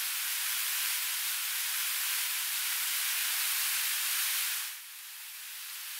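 Steady rushing hiss of a waterfall and river. About three-quarters of the way through it drops in level and thins to a higher hiss, then slowly builds again.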